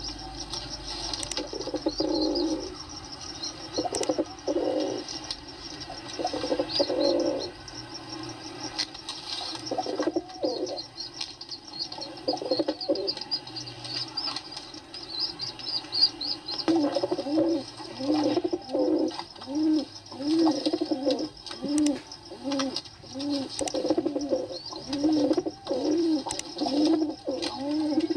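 Pigeons cooing. The calls are irregular at first, then from about 17 s settle into a steady run of rising-and-falling coos at about one and a half a second. Faint high chirps sound above them in the first half.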